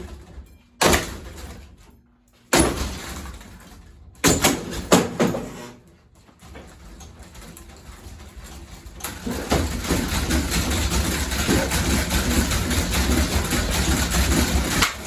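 Hugger ceiling fan being smashed: a few heavy knocks, each with a ringing tail, in the first five seconds, then from about nine seconds a steady loud clattering noise.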